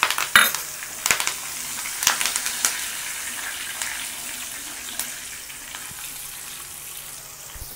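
Fresh curry leaves and garlic sizzling in hot oil as a tempering, stirred with a wooden spatula, with scattered sharp crackles. The hiss eases off gradually.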